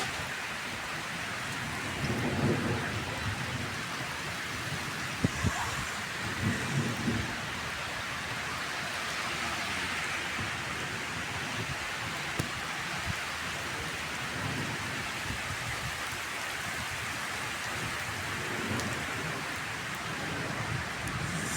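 Steady rain falling, an even hiss, with a few brief low rumbles.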